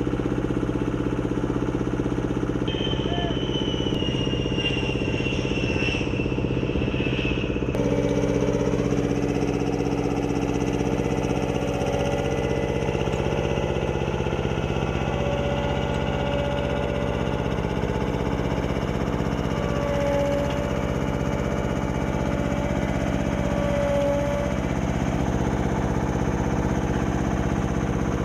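Steady drone of engines on an aircraft flight line, a low hum made of several held tones. Over the first several seconds a high whine slowly falls in pitch, and the mix of tones changes about eight seconds in.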